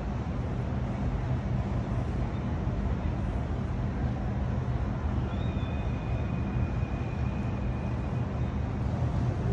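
Steady low rumble of distant engines and city traffic, with a faint thin high tone held from about five seconds in to about eight and a half.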